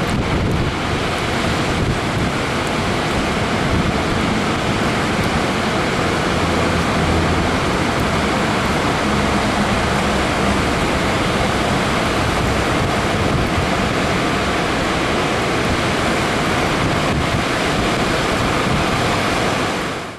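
Water pouring over a lowhead dam and churning in the hydraulic below, a loud steady rushing noise with wind buffeting the microphone. It cuts off suddenly at the end.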